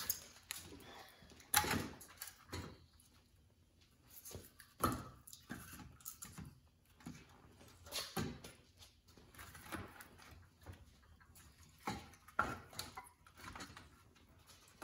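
Split cherry firewood being set piece by piece into the metal cradle of a hand-crank firewood bundler: a handful of separate wooden knocks a few seconds apart, with quieter handling sounds between them.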